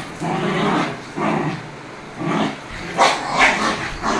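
Small Pomeranian dog growling and barking in rough play, with two sharp barks close together about three seconds in.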